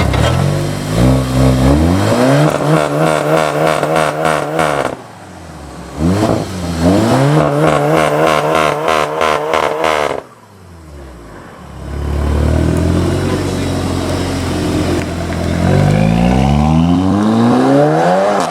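A Volkswagen Golf's turbocharged 2.0-litre four-cylinder engine revved hard twice: each time the pitch climbs, holds high for a few seconds, then cuts off sharply as the throttle is released. Near the end the revs climb once more.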